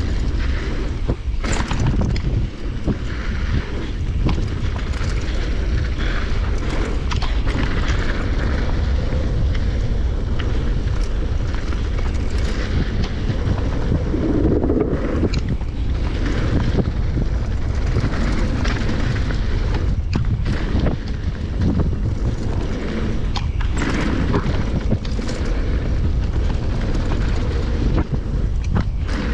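Wind buffeting the microphone and a mountain bike's tyres rumbling over a dusty dirt trail at speed, with scattered sharp clicks and knocks as the bike hits bumps. About halfway through, a louder clattering rumble as the tyres cross a wooden slatted bridge.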